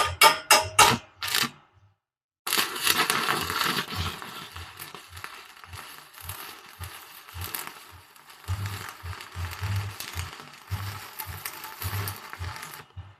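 A few quick rhythmic beats in the first second, then a stick-welding arc from a 1/8-inch 6013 electrode crackles steadily for about ten seconds while a bead is run on solid square steel bar, cutting off near the end. The arc sounds dull, 'muy sorda', which the welder takes as a sign that this electrode lacks heat.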